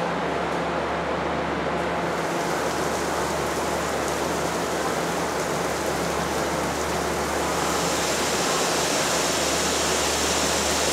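Overhead shower pipes spraying water down onto a rack of cooked sausages, the cooling shower after cooking: a steady hiss of falling water that turns brighter about two seconds in, over a steady low machinery hum.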